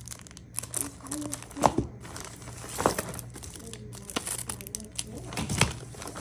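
Packaging being handled and opened by hand: plastic or paper crinkling and rustling in irregular handfuls, with a few louder crackles.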